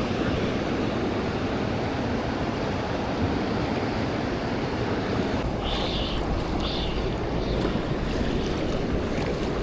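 Steady wind and water noise on an open boat, with wind rumbling on the microphone. About halfway through the low rumble grows stronger, and two short high-pitched sounds follow soon after.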